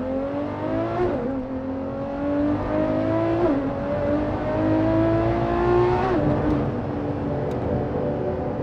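Ferrari LaFerrari's V12 accelerating hard through the gears. The engine note climbs steadily and drops back sharply at each upshift, three times, about one, three and a half and six seconds in.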